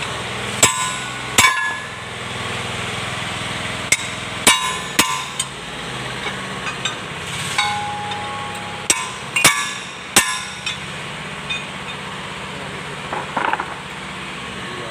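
Sharp metal-on-metal clanks with a short ring, about ten in irregular clusters over the first ten seconds, from a large open-end wrench knocked against the axle shaft nut on the final-drive gear of an L1-185 tractor's rear axle. The wrench is being used to loosen the nut.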